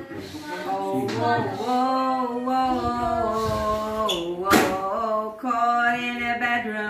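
A voice singing in long, held, wavering notes, with a short loud burst about four and a half seconds in.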